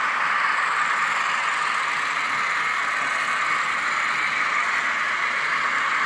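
Sound-fitted N gauge model diesel locomotives, class 50s and a class 47 on Zimo sound decoders, playing recorded diesel engine sound through their tiny onboard speakers: a steady, even engine drone with little bass.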